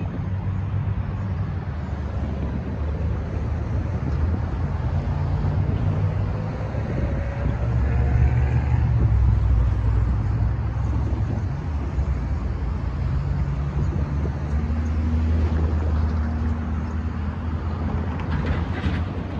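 Road traffic crossing the railroad tracks once the gates lift: cars and trucks pulling away and driving past close by, engines and tyres, with a steady low engine rumble. The loudest passing is about eight to ten seconds in.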